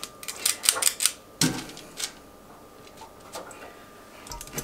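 Small metal squeeze-handle ice cream scoop clicking and scraping against a metal mixing bowl as cookie dough is scooped: a quick run of sharp clicks and knocks in the first two seconds, then a few sparse clicks.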